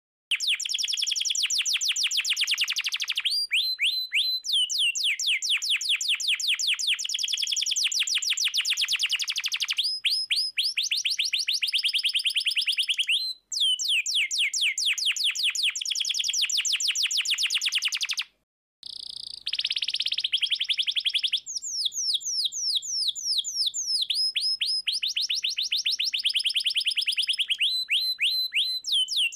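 Domestic canary singing a long, fast song of rapid trills: runs of quick repeated falling notes, several to ten a second, shifting from one run to the next. The song breaks off briefly twice, near the middle.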